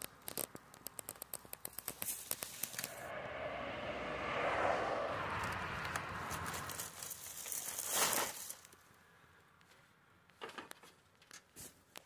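Dry palm fibres and fronds rustling and crackling as they are brushed and handled, with a run of quick crackles at first, a longer rustling stretch and a sharp scrape about eight seconds in.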